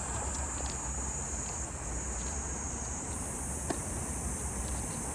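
Steady high-pitched insect drone, shifting slightly in pitch twice, over a low wind-like rumble; a single sharp knock about three and a half seconds in, like a tennis ball struck on a racket.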